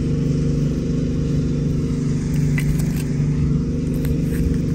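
An engine running steadily at a constant pitch, with a few faint clicks over it.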